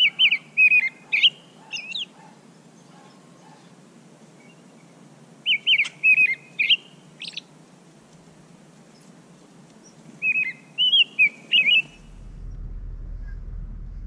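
A songbird singing the same short phrase of quick chirping notes three times, about five seconds apart.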